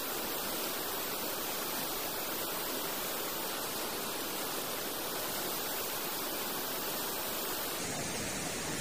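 Steady rushing of a river in heavy flood, an even, unbroken noise. Its sound changes a little near the end.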